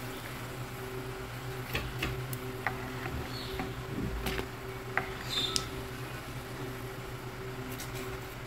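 Hot frying oil crackling faintly, with scattered light pops and clicks from a metal skimmer scraping the pan as fried samosas are lifted out, over a steady low hum.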